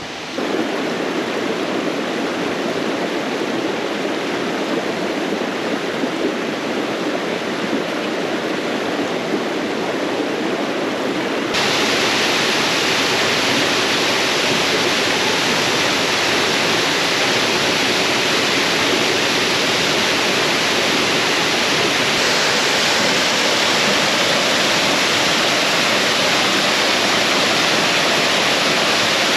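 Steady rush of a stream. About twelve seconds in it changes abruptly to a louder, hissier rush of falling water from a waterfall, which continues steadily.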